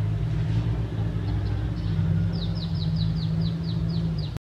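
A steady low rumble like a running motor, with a bird calling a quick series of about nine short, falling notes in the second half. The sound cuts off abruptly just before the end.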